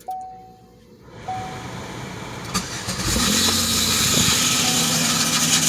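A Chevy Equinox V6 being started: a warning chime dings at intervals, the engine cranks and catches about three seconds in, then runs with a loud steady hissing noise from the engine bay. The owner puts this start-up noise down to a bad starter.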